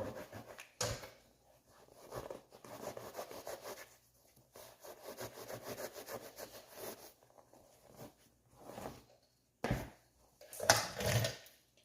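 Serrated bread knife sawing back and forth through seat foam, in uneven stretches of rough strokes. Near the end there are a few sharper, louder knocks.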